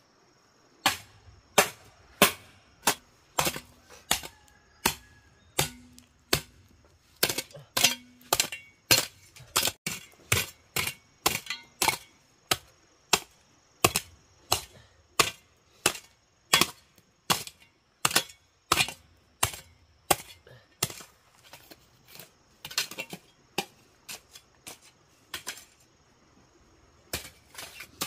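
Hammer striking nails into wooden boards: a long, steady run of sharp blows, about one and a half a second, easing off near the end.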